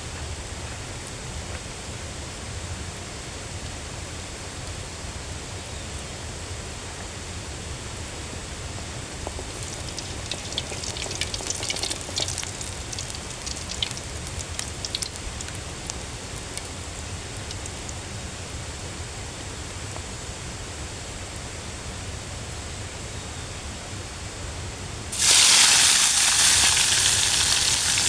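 Outdoor cooking over a steady low rumble: a few seconds of crackling and popping about halfway through, then a loud sizzle that starts suddenly near the end and keeps going.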